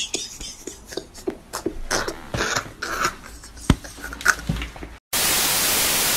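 A man laughing hard in short, irregular, breathless bursts. About five seconds in, the laughter cuts off and a steady static hiss takes over.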